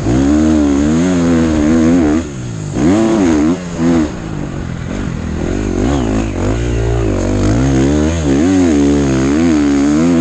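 KTM 450 motocross bike engine, heard from the onboard camera, revving hard as it is ridden through sand. Its pitch swings up and down with the throttle and gear changes, and the engine briefly drops off about two seconds in and again near four seconds.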